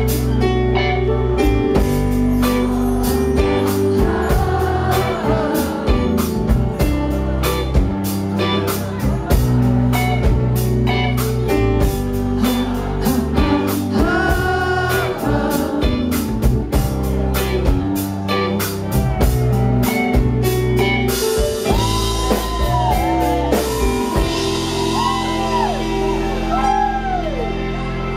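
A live rock band playing a slow ballad: drum kit with a steady beat, bass guitar, electric guitar and keyboards under a male lead vocal, heard through the PA from the audience. About three quarters of the way through the drums drop back, leaving the voice over held chords and bass.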